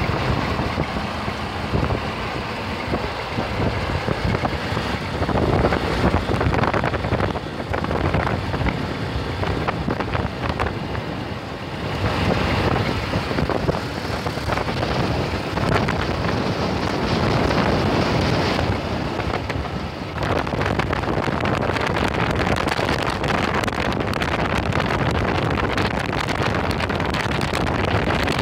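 Two motorcycles riding along, their engines running under heavy wind buffeting on the microphone of a moving camera.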